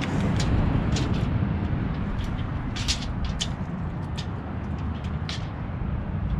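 Steady low outdoor rumble, with scattered short clicks and rustles from a tape measure and its handling.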